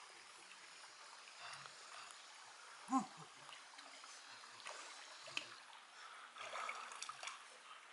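A shallow, rocky stream trickling, with small splashes and knocks as hands and feet move through the water and over stones, busiest near the end. A single short pitched cry with a bending pitch stands out about three seconds in.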